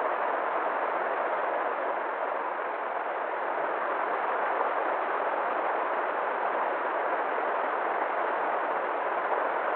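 River water rushing and flowing, a steady even rush with no change in level.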